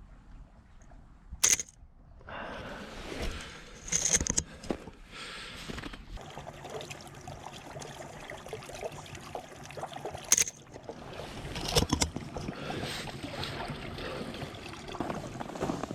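Canon AE-1 35 mm film SLR taking pictures: about five sharp shutter clicks, one a quick double, spaced irregularly, over a steady noisy background.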